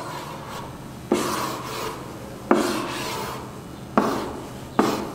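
Strokes drawn across an interactive whiteboard's surface while the edges of a box shape are sketched. There are four rubbing strokes, each starting sharply and fading away.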